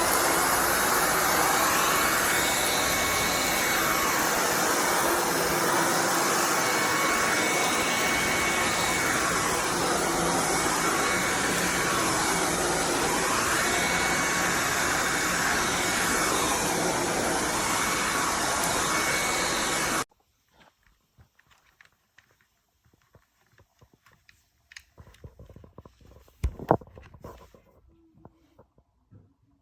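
Shark IX141 cordless stick vacuum running: a loud, steady rush of air with a thin steady whine, its sound rising and falling every few seconds. It shuts off suddenly about two-thirds of the way in, after which there are only faint clicks and one sharp thump near the end.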